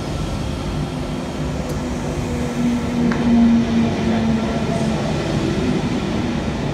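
Double-deck electric train moving along the platform: a steady rumble of wheels and running gear with a motor hum that swells about three seconds in.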